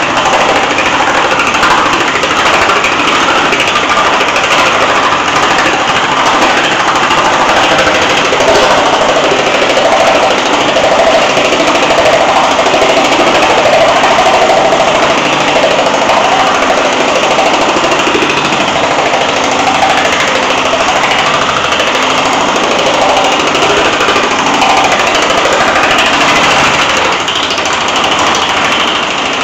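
Homemade power hammer running, its dies rapidly hammering a sheet of 20-gauge steel to shape it as the sheet is moved through by hand: a loud, continuous clatter.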